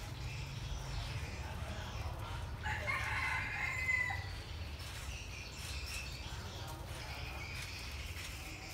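A rooster crowing once, about three seconds in, a call of about a second and a half that ends on a falling note. Fainter calls follow, over a steady low background rumble.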